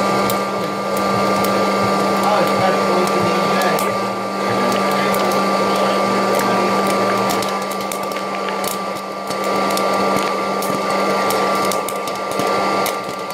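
Hot-air popcorn popper running, its fan motor giving a steady whirring hum, with sharp pops of kernels bursting that come more often in the second half.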